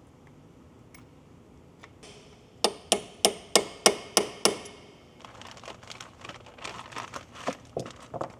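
Small hammer striking a pin punch to drive the pad retaining pin into a Brembo brake caliper: a couple of light single taps, then seven sharp ringing metal strikes about three a second. After that, lighter irregular clicking and rustling as parts are handled.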